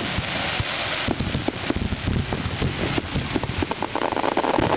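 Aerial fireworks crackling: a dense, continuous crackle of many small pops from glittering star bursts, growing louder near the end.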